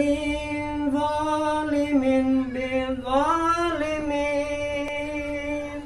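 A single voice chanting in long held notes, sliding up and back down about three seconds in.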